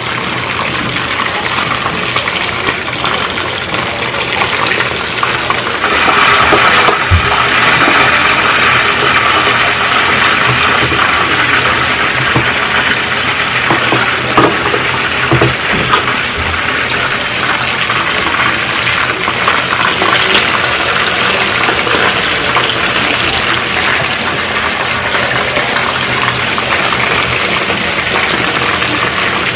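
Chicken pieces frying in hot oil, a steady sizzle that grows louder about six seconds in, with a few knocks against the pan.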